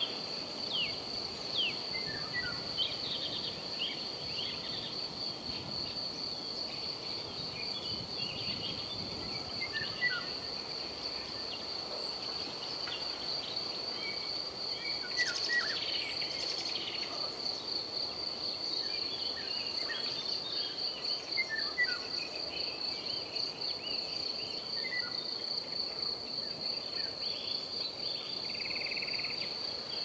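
Crickets trilling in a steady, finely pulsing high tone, with scattered short bird chirps and a brief busier burst of birdsong about halfway through, over a soft wind hiss.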